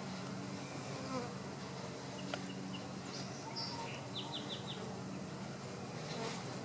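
Honeybees humming steadily around an opened hive, a low even drone. A few short high chirps sound about halfway through.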